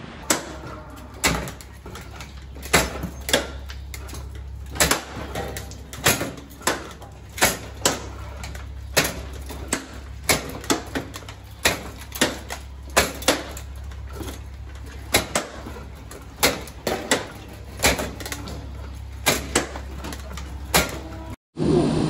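Repeated sharp knocks and clanks at an uneven pace, about one or two a second, over a steady low hum. The sound breaks off shortly before the end.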